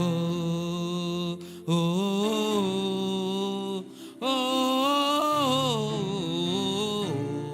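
Slow worship music: a voice sings long wordless notes that slide in pitch, in phrases broken twice by short pauses.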